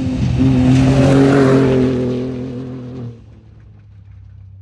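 Ford Raptor's twin-turbo 3.5 L EcoBoost V6 running hard off-road, holding a steady note under a rushing noise that peaks about a second in, then dropping away to a much quieter engine sound after about three seconds.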